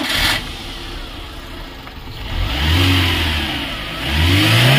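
Maruti Suzuki Eeco's four-cylinder petrol engine running on petrol. It is revved up about two and a half seconds in and eases back, then revved again near the end and held at higher speed. It picks up without stalling with its faulty MAP sensor unplugged.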